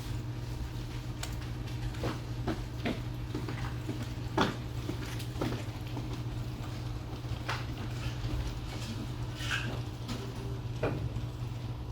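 Office ambience: a steady low hum of room machinery, with scattered small clicks, taps and knocks. The sharpest knock comes about four seconds in.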